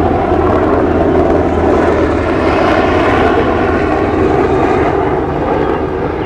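Helicopter passing over, a loud steady engine-and-rotor noise that eases slightly near the end.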